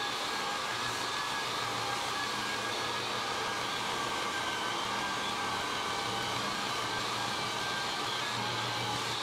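8-inch walk-behind drum floor sander running steadily while sanding hardwood floorboards: a constant motor whine over a rushing hiss of the abrasive drum on the wood.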